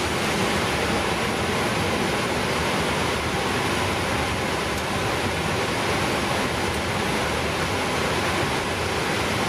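Steady cockpit noise of a Boeing 777-300ER on the ground: an even rush of air-conditioning and equipment-cooling airflow with the engines at idle, unchanging in level.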